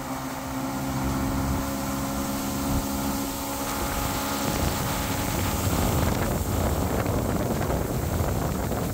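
Evinrude E-TEC 115 two-stroke outboard motor running steadily at cruising speed as the boat travels, with rushing wind and water. About halfway through, the engine's steady hum sinks under a rougher rush of wind on the microphone.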